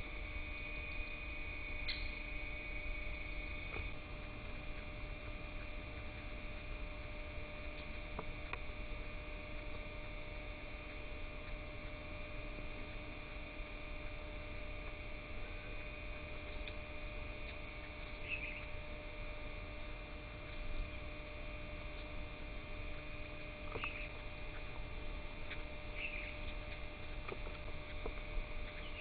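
Steady hum made of several held tones over a low rumble, with a few faint short bird chirps about two-thirds of the way through and again near the end.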